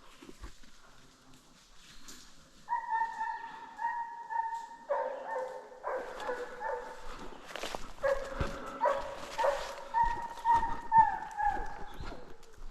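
Hunting hounds baying in long, drawn-out bawls, several voices overlapping at different pitches, the cry of dogs working a bear scent. A few light knocks are heard among the calls.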